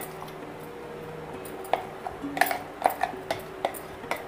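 Steel spoon scraping the ground chana dal paste out of a steel mixer-grinder jar, clinking against the metal. A run of about six sharp clinks comes in the second half.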